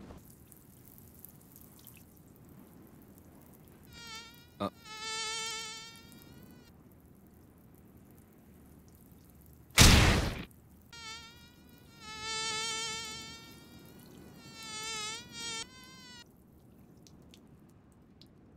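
Mosquito whine, a thin buzzing drone that wavers in pitch as it flies in and out several times. One loud smack comes about ten seconds in.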